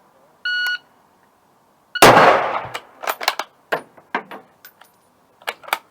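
A short electronic beep, then about a second and a half later a single loud rifle shot with a long echoing tail. A run of smaller sharp clicks and clacks follows.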